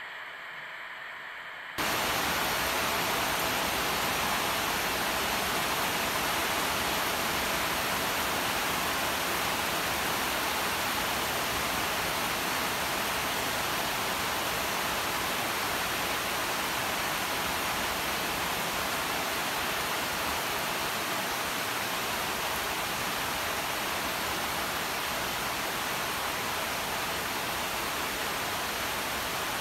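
Steady rain falling on vine leaves, an even hiss that comes in abruptly about two seconds in and holds without change.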